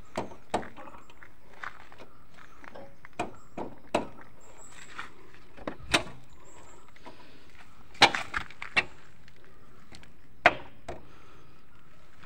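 Irregular sharp metal knocks, about a dozen, as the rear axle of a Honda CB Unicorn is tapped in through the wheel hub and its new bearings. The loudest strikes fall near the middle and later in the stretch.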